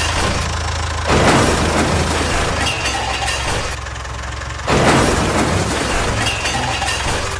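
Tractor engine running steadily, broken by two sudden loud crashes, one about a second in and another just before five seconds in, each fading over about a second.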